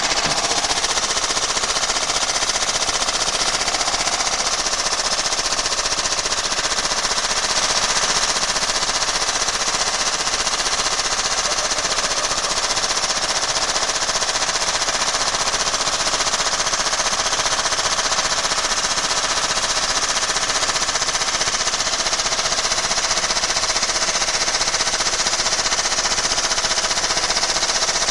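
A washing machine spinning with a stone inside its drum, making a loud, continuous, rapid clattering and hammering as it shakes itself apart.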